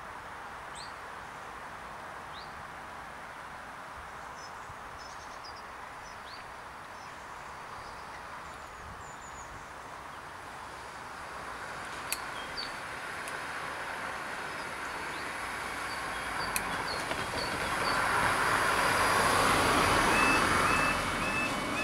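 Steady outdoor hiss with birds chirping and two sharp clicks, then a swelling rush of road noise over the second half. Near the end the level crossing's two-tone warning alarm starts beeping as the amber lights come on, the start of the crossing's closing sequence for an approaching train.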